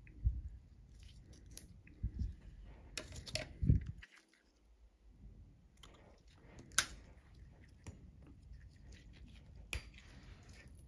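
Faint handling of surgical instruments over a paper drape: rustles, small knocks and a low bump as a suture is tied. Sharp snips follow past the midpoint as scissors cut the suture tails.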